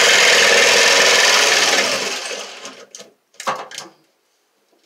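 Jigsaw cutting plywood, running steadily and then winding down about two to three seconds in, with a second short burst of cutting about half a second later.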